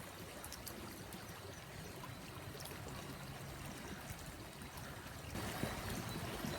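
Faint, steady rushing background noise, a little louder from about five seconds in.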